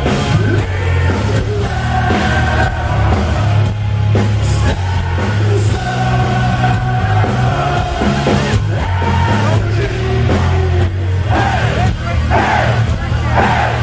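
Live heavy metal band playing loud: distorted guitars, bass and drums with a singer shouting and singing over them. Held high notes recur over a heavy, pounding low end.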